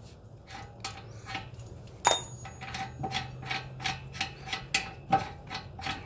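Steel tool scraping and tapping against the staked collar of a wheel hub's spindle nut in short repeated strokes, about three a second, each with a faint metallic ring, and one sharper clink about two seconds in. The tool is straightening out the nut's crimped anti-back-out indentation so the nut can be removed.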